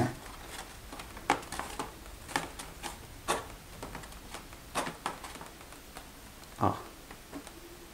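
Scattered light clicks and taps of hands gripping and handling a Depron foam model airplane, with one louder, duller knock about two-thirds of the way through.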